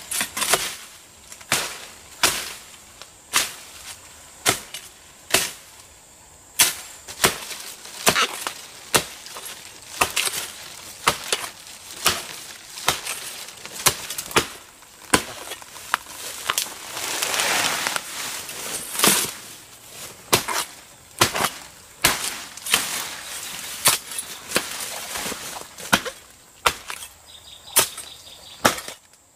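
Repeated chopping with a blade: sharp strikes about once a second, unevenly spaced, with a longer rasping noise lasting about two seconds a little past the middle.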